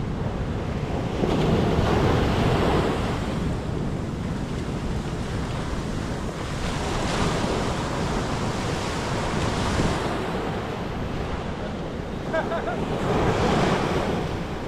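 Ocean surf washing up the beach, with wind buffeting the microphone; the wash swells louder three times, about a second in, around the middle, and near the end.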